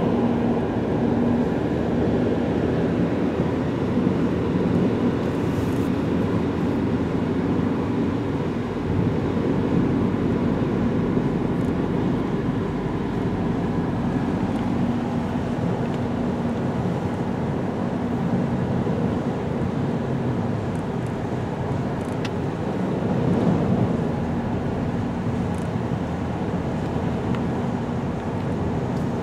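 Steady road noise inside a moving car on a wet highway: engine hum and tyres running on rain-soaked pavement.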